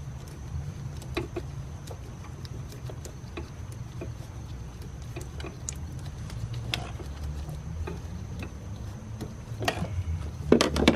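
Scattered light clicks and taps of hands and tools working a rubber fuel hose off a car's fuel filter, with a few louder knocks near the end, over a steady low hum.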